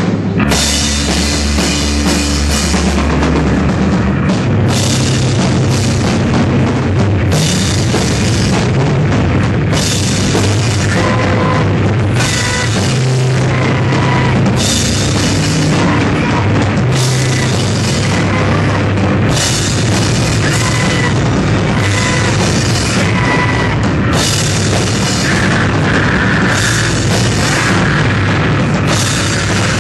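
Loud live noise band playing: a drum kit with cymbal crashes every couple of seconds, together with electric guitar and saxophone.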